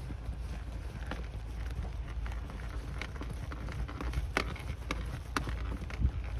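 Footsteps on wet ground on a walk in the rain: irregular light taps, coming about twice a second in the second half, over a steady low rumble.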